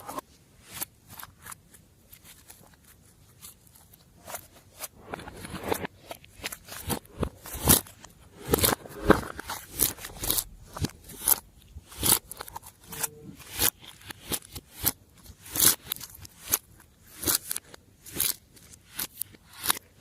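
Glossy slime being kneaded and pressed by hand, giving irregular sticky clicks and crackling pops that grow busier about a third of the way in.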